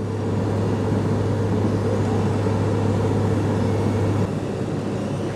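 Diesel engine of a Vögele Super 1900-2 asphalt paver running steadily with a low hum, which drops a little in level about four seconds in.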